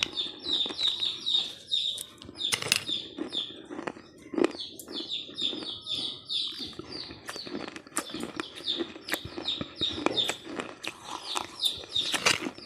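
Close-up crunching and chewing of a crunchy, coarse snack: a rapid, irregular run of crackling crunches.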